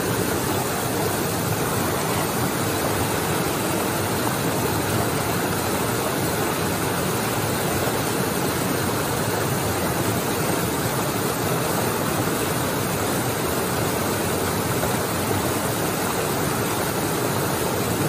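Steady rush of water tumbling over rocks in a small creek cascade, an even noise that does not change.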